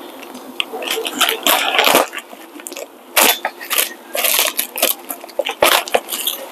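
Hands and tools working on a car's rear disc brake during a pad change: irregular metal clicks and knocks with short scraping stretches, the sharpest knocks about three seconds in and again near six seconds.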